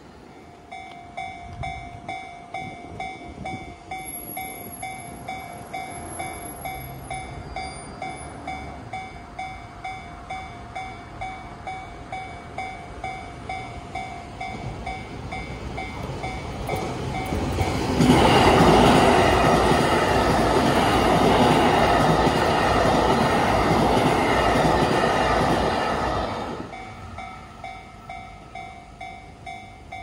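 Japanese railroad-crossing alarm ringing in a steady ding-ding, about two strikes a second, while the barriers come down. About 18 seconds in, a train passes over the crossing loudly for about eight seconds and drowns the bell. The bell is heard again once the train has gone.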